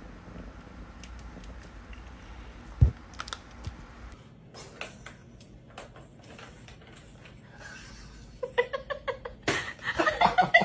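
A single knock about three seconds in, then scattered clicks, building near the end into a quick run of clicking and tapping.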